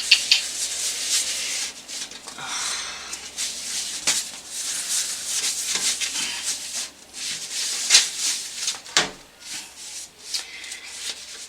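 Rubbing and scraping as hands handle the dusty parts inside a desktop PC, with a few sharp clicks, the loudest about eight seconds in.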